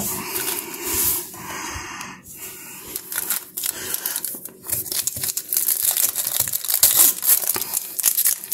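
Foil baseball-card pack wrappers being torn open and crinkled. A smooth tearing sound comes first, then a dense crackling from about halfway through.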